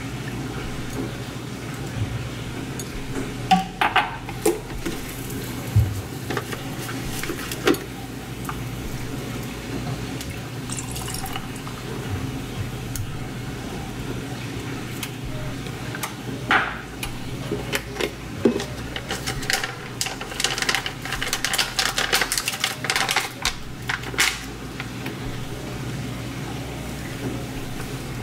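Drink being mixed in a glass over ice: liquid poured onto ice, with scattered clinks of glass and bottles set on the countertop. A little past two-thirds through comes a run of rapid clinking lasting a few seconds.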